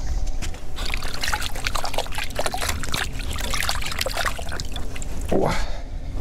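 Water trickling and dripping with a dense run of small splashes and clicks, then a short swish near the end.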